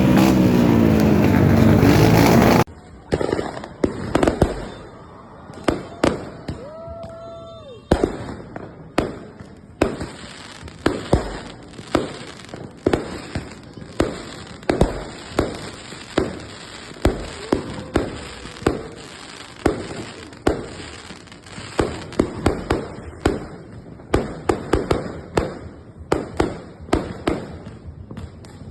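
Fireworks exploding in rapid, irregular bangs and crackles, several a second, with a short whistling tone about six seconds in. It is preceded by a couple of seconds of a loud motorcycle engine revving, which cuts off abruptly.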